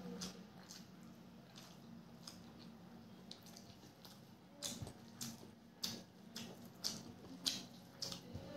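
Wet eating sounds of rice being eaten by hand: squishing and smacking clicks, a few sparse ones at first, then louder and about every half second from around halfway through, over a low steady hum.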